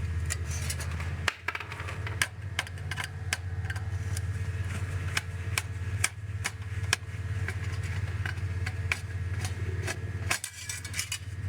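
Hand tools clicking and clinking irregularly against metal and circuit-board parts during teardown of electronics, over a steady low hum.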